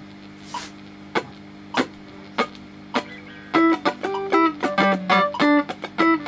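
Digital metronome clicking four times at about 100 beats a minute, then an electric Telecaster-style guitar through a tube amp comes in about three and a half seconds in, playing short, clipped staccato funk notes and chords in time with the continuing clicks.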